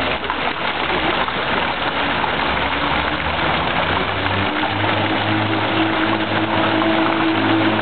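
Fountain jets splashing into a pool: a steady rush of falling water. A low steady hum joins it about four and a half seconds in.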